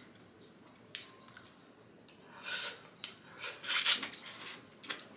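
A person slurping long pasta noodles off a fork right at the microphone, in a few loud hissing bursts in the second half, after a single light click about a second in.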